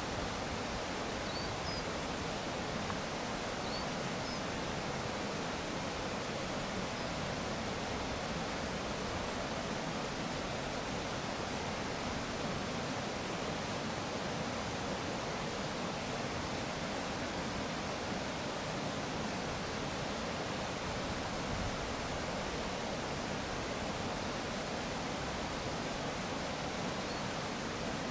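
Steady outdoor rushing noise, even and unbroken, with a few faint high chirps.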